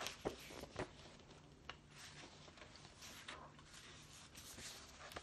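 Paper pages of a picture book being turned: a few sharp rustles and taps in the first second, then only faint rustling and room noise.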